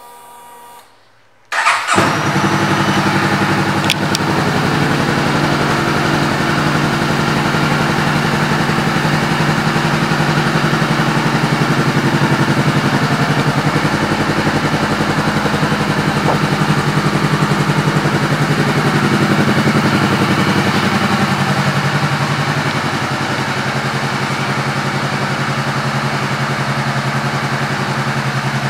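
2014 Honda CBR500R's 471 cc parallel-twin engine, fitted with an aftermarket exhaust, starting about a second and a half in and then idling steadily.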